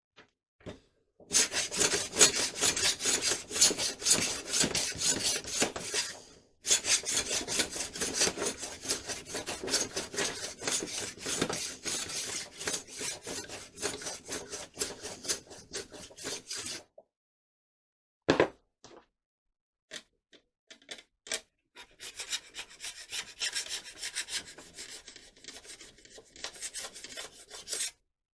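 Rapid, even back-and-forth rasping strokes of hand-abrading excess dried glue off a rod. They come in two long runs with a short break between. After a pause with a few light clicks, a quieter run of strokes follows near the end.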